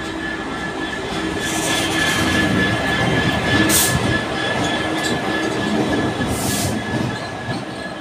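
GB Railfreight Class 66 diesel-electric locomotive rolling slowly past at close range, its two-stroke V12 engine running with a steady high tone over the rumble, louder as the locomotive draws level. Two short sharp hisses come a little under four seconds in and again at about six and a half seconds.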